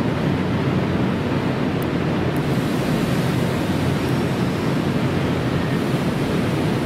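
Steady rushing noise from a Nankai 1000 series electric train standing at a station platform, its air-conditioning and onboard equipment running while it waits.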